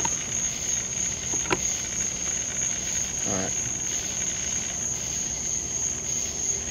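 Crickets trilling steadily in one unbroken high note. A single click comes about a second and a half in, and a brief whine that rises and falls comes about halfway through.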